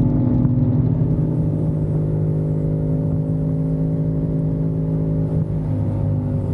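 CFMOTO 450SR's parallel-twin engine running at a steady cruising speed, its pitch nearly constant.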